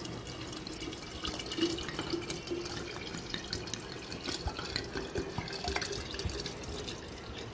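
Water poured in a steady stream from a bottle into a glass jar of orange slices: continuous splashing with small drips and clicks. A faint tone sits a little higher as the jar fills.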